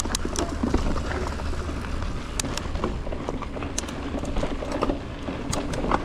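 Mountain bike riding down a dirt trail, heard from a helmet chin-bar camera: a steady wind rumble on the microphone and tyre noise over the dirt, with scattered sharp clicks and rattles from the bike over bumps.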